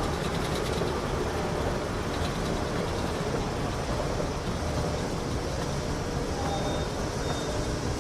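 Escalator running: a steady mechanical rumble with no break.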